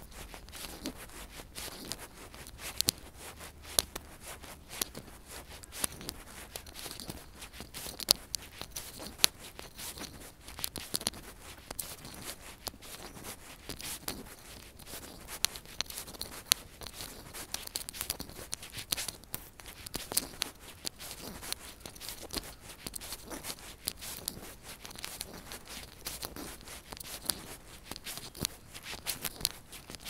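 Irregular crackling and scraping rustle, the handling noise of a handheld phone microphone rubbing as its holder walks along the pavement.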